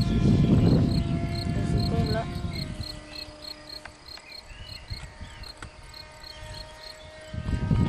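Radio-controlled model F-22's motor whining overhead as a steady tone that dips slightly in pitch about two seconds in. Insects chirp in a regular pulse about three times a second, and wind rumble on the microphone fades after about three seconds and returns near the end.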